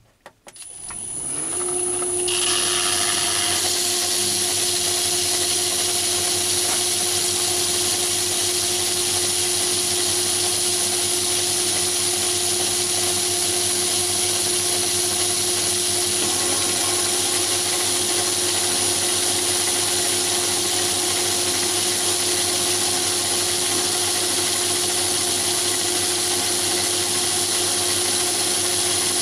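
Metal lathe motor starting up and spinning up over about a second, then running steadily with a hum and a high whine while a vertical shear tool takes a light finishing cut on an aluminium bar.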